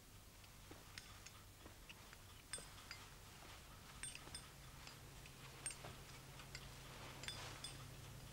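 Near silence: quiet room tone with a faint low hum and faint, irregular small clicks.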